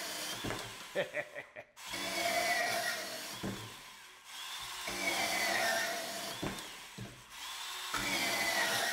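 Hilti compact cordless band saw cutting through thin-wall EMT steel conduit: a wavering, whining rasp, repeated as several short cuts, with a few sharp clicks between the first and second cut.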